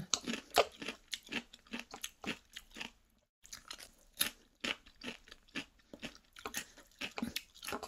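A person chewing mouthfuls of fresh raw cucumber, a quick irregular run of crisp crunches with a short pause about three seconds in.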